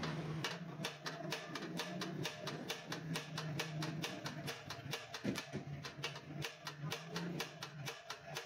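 Hammer tapping fast and evenly on a metal block held against a chrome spoked motorcycle rim, about four sharp metallic blows a second, knocking out a dent in the rim. A steady low hum runs underneath.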